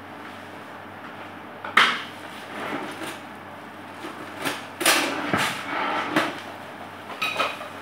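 Kitchen handling noises out of view: a sharp knock about two seconds in, then a cluster of clunks and rattles in the middle and a couple more near the end, over a steady low hum.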